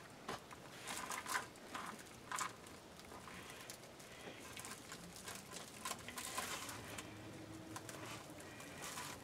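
Faint, intermittent rustling of plastic deco mesh being gathered and handled, with soft scrapes of a pipe cleaner being twisted around it.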